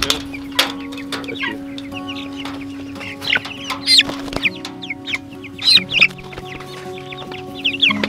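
Young broiler chickens cheeping, a scatter of short, high peeps at irregular intervals.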